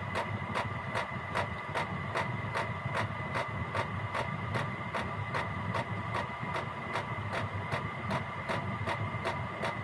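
Gearlasso 8 kW Chinese diesel heater running: its fuel dosing pump ticks evenly, about three to four times a second, over the steady hum of the combustion fan and burner. The heater has just been turned up to its top output setting, program 10, so the pump rate is rising.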